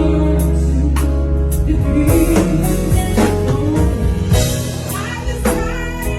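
Live band music: drum kit hits over sustained bass and keyboard chords, with a woman singing a slow ballad.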